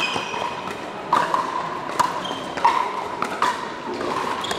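Pickleball paddles striking a plastic ball in a soft dinking rally at the net: about five sharp pops, each less than a second after the last.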